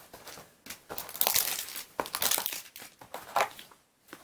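Packaging from a Pokémon TCG box crinkling and rustling as it is handled, in several short bursts, the busiest about one to two and a half seconds in.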